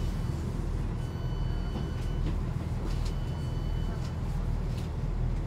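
Diesel multiple-unit train idling at a station stop, its underfloor engine giving a steady low rumble heard from inside the carriage. Two long high-pitched beeps, each about a second long, sound about a second apart.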